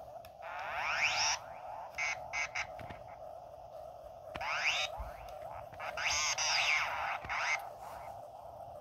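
Korg Monotron Delay analogue synthesizer played by hand: a steady drone broken by several bursts of rising pitch sweeps, the longest about six seconds in, with short blips in between.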